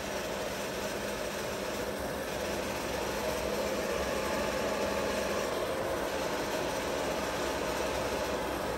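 WMW-Heckert dual-spindle universal milling machine running steadily, its table feeding at the minimum feed rate of 16 mm per minute, with a faint steady whine over the running noise.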